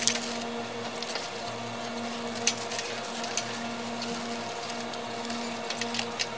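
A steady low electrical hum, with a few short clicks and rustles from handling.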